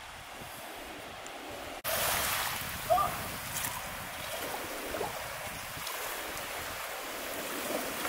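Small ocean waves breaking and washing up the shore, with wind on the microphone, starting abruptly about two seconds in after a quieter steady hiss.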